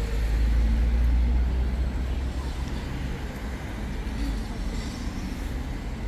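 City street traffic: a motor vehicle's low rumble, loudest in the first two seconds, over steady road noise.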